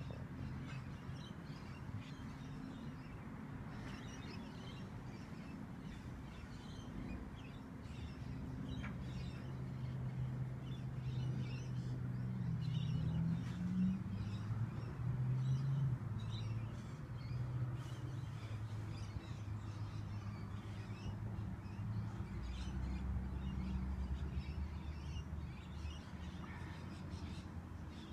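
Domestic tabby cat purring steadily while being stroked on the head, louder through the middle, with faint scattered light clicks.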